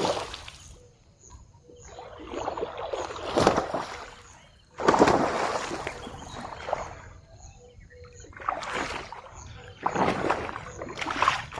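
Water splashing and sloshing in several separate bouts, each lasting a second or two with quieter gaps between.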